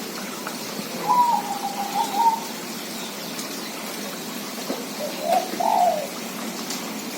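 Zebra dove (perkutut) cooing: two short phrases, one about a second in and another about five seconds in.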